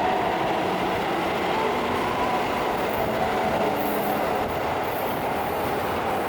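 A train running steadily along the rails, a continuous rumble and rolling wheel noise, with brief faint high-pitched hissing or squealing around four and five seconds in.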